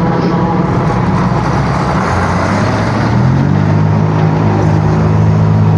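Motor vehicle engine and road noise in traffic. A steady engine hum runs under a rushing noise that swells about two seconds in, and a stronger, steadier engine tone settles in from about three seconds in.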